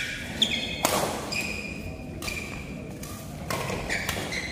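A badminton rally: rackets hitting the shuttlecock with sharp cracks, the loudest about a second in, each echoing in the hall. Court shoes give short, high squeaks on the floor between the hits.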